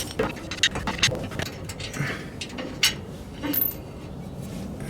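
Irregular metallic clicks and clinks as a bolt is worked out of the truck's crossbar by hand.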